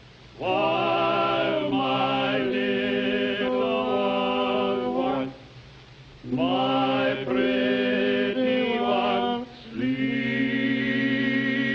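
Male glee quartet singing in close harmony, holding long sustained chords in three phrases with short breaks between them.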